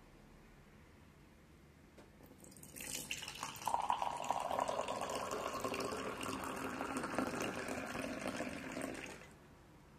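Barley tea poured in a steady stream into a glass tumbler, splashing and frothing as the glass fills; the pour starts about two and a half seconds in and stops shortly before the end.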